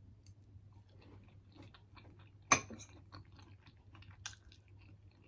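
Close-miked chewing and wet mouth sounds of a person eating, with scattered small clicks and one sharp click about two and a half seconds in.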